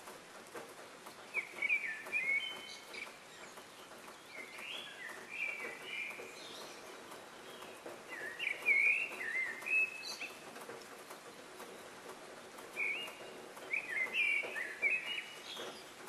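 Small songbirds chirping in four short bursts of quick, high chirps, a few seconds apart.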